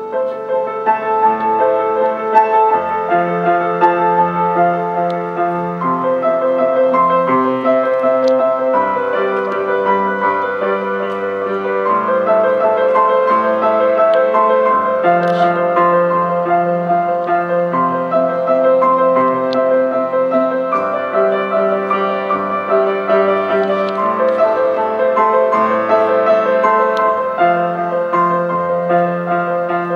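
Grand piano played solo: held chords changing every second or two over low bass notes.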